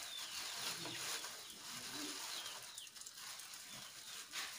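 Faint bird calls: a few short, high chirps, each sliding downward in pitch.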